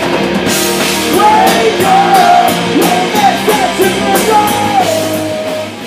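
Live punk rock band playing: shouted lead vocals over guitar and drums, the singer holding one long note near the end as the music starts to fade out.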